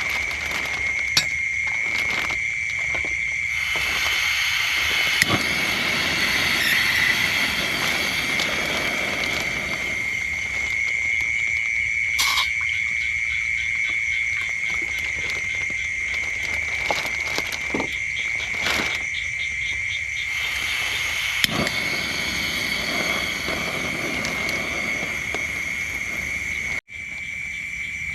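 Night chorus of frogs and insects: a steady, high-pitched trilling drone with a fast pulsing texture, broken by occasional sharp taps. The sound cuts out for an instant near the end.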